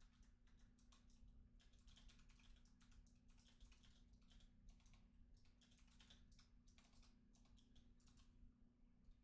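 Faint typing on a computer keyboard: quick runs of keystrokes with short pauses, over a low steady hum.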